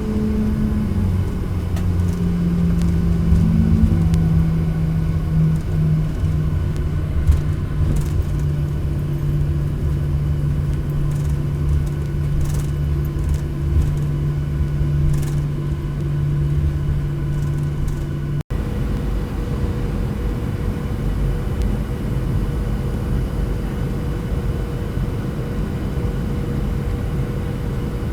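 Steady vehicle rumble with a constant low engine hum. The hum settles lower in pitch in the first seconds, and about two-thirds of the way through it cuts abruptly to a similar steady drone at a higher pitch.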